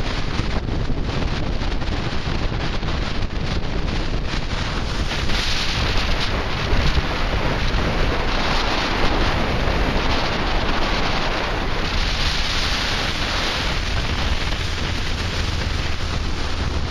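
Wind buffeting the microphone of a camera on a moving scooter: a loud, steady rushing noise that swells somewhat in the middle.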